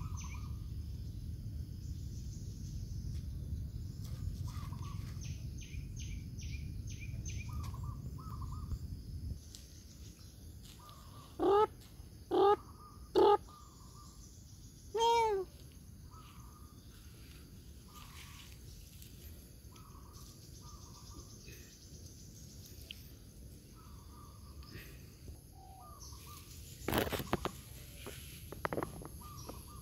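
Birds calling: a short call repeats about once a second throughout, and four loud calls come between about 11 and 15 seconds in, the last one longer. A low rumble runs through the first nine seconds, and a few sharp rustling knocks come near the end.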